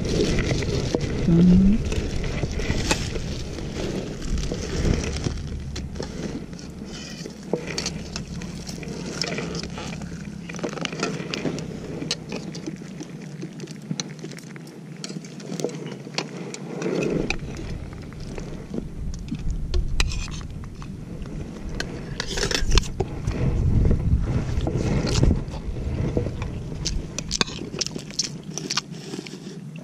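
Eating sounds from a meal on a mat: a metal spoon clinking and scraping on a plate and plastic bags rustling, as scattered small clicks and scrapes. Wind rumbles on the microphone at times.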